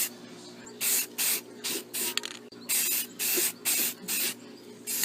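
Paint being sprayed onto a lawn mower engine's fuel tank in short bursts of hiss, about ten in five seconds, over a steady low hum.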